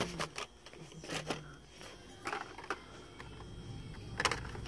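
Hot Wheels blister packs being handled and flipped through on a pegboard display: scattered clicks and crinkles of plastic bubbles and card backs knocking together, with a sharper click about a second and a quarter in and another near the end.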